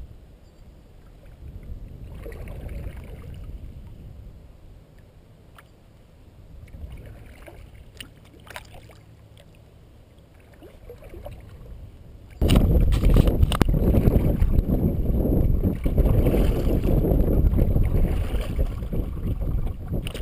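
Kayak paddling on calm water: soft, uneven swells of paddle strokes and water, with a few light clicks. About twelve seconds in, loud wind buffeting on the camera microphone starts suddenly and covers everything else.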